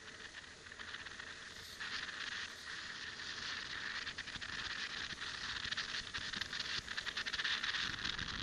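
Riding noise on a dash camera's microphone aboard a moving scooter: rapid crackling and rattling over a hiss of wind and road noise. It gets louder over the second half.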